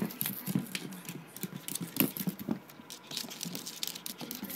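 Shih Tzu puppy's claws pattering on the floor as it moves about: quick, irregular light taps, with one louder knock about two seconds in.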